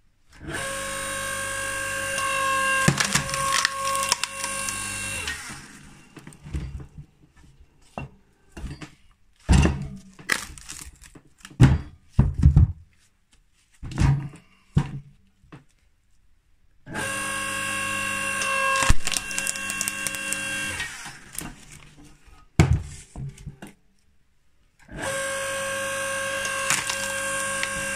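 Log splitter running in three steady stretches of a few seconds each, pushing a log onto its splitting wedge. Between the stretches come loud, irregular cracks and knocks as the wood splits apart and the pieces knock together.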